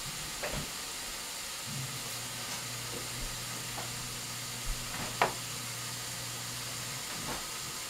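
Cabbage cooking in a covered pot on an electric stove, with a steady sizzling hiss. A low hum comes in about two seconds in and stops about seven seconds in. A few light clicks are heard, and a sharper knock comes about five seconds in.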